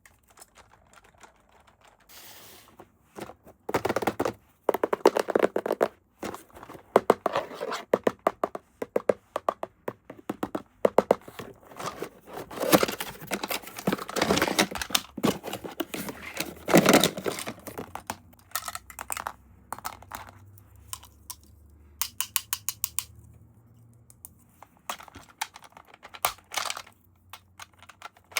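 Toy packaging being handled and opened: runs of quick clicks, crackles and tearing of plastic and cardboard. The sounds thin out to scattered clicks in the last third.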